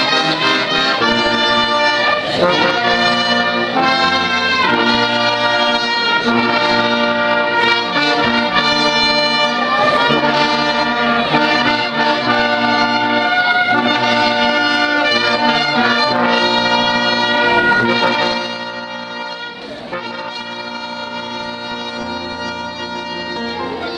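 Brass band playing slow music in held chords; it drops to a softer passage about eighteen seconds in.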